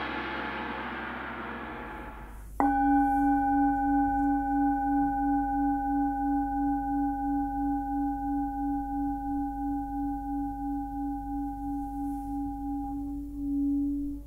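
A 15.2 cm hand-forged Tibetan singing bowl tuned to C sharp (about 282 Hz), struck once about two and a half seconds in and left to ring, its tone pulsing about twice a second. Before the strike a noisy metallic wash fades away, and near the end the ring dips and swells as the stick is brought to the rim.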